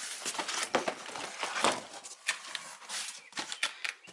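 Cardboard firework cases and packs being handled: irregular knocks, taps and rustling as boxes are picked up, turned over and set down.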